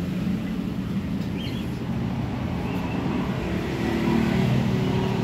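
An engine running steadily, a low, even hum, with a few faint high chirps over it.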